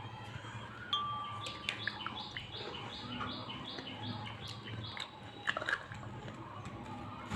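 Someone eating watermelon: wet clicks and crunches of chewing, loudest a little past halfway. Behind it, a run of about eight evenly spaced high chirps, two or three a second, begins after about a second and a half.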